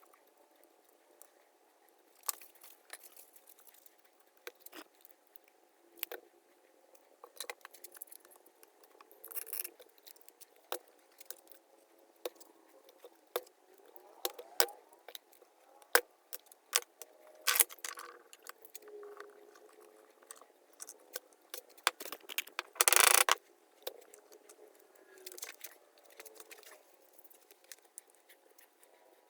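Scattered light clicks, taps and rattles of hand tools and wood pieces being handled at a workbench, with one loud, noisy half-second burst about 23 seconds in.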